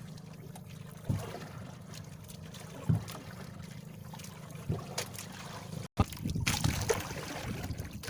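Small boat's motor running steadily with water noise, a few sharp knocks, and a brief break about six seconds in.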